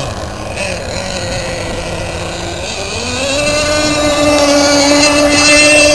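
Gas-powered RC speedboat's small two-stroke engine running across the water, its pitch rising sharply about three seconds in and then holding steady at the higher pitch as the throttle opens.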